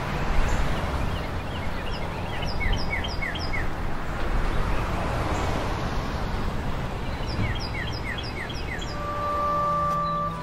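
Steady outdoor rushing noise with a songbird singing two short phrases of quick, falling chirps, one about a second and a half in and another about seven seconds in. A steady ringing tone comes in near the end.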